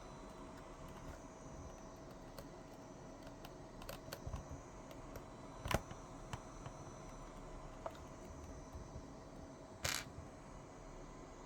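A few scattered clicks and taps over a faint steady hum, with one sharper click about halfway through and a short hissing burst near the end.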